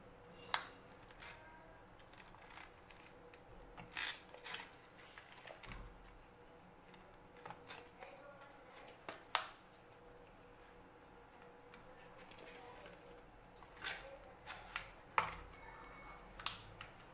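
Thin plastic chocolate mould crackling and clicking as set chocolates are pressed out of it, with light taps as they are set down on a plate. The clicks come singly or in short clusters, a few seconds apart.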